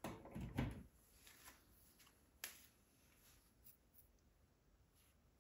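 Near silence, with faint rustling in the first second and a single sharp click about two and a half seconds in.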